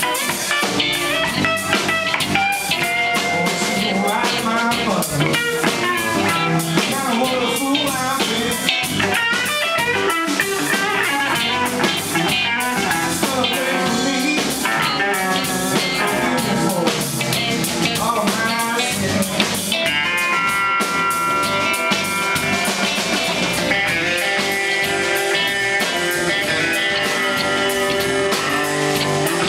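Live blues band playing: electric guitar lead lines over electric bass and drum kit, with long held guitar notes about two-thirds of the way through.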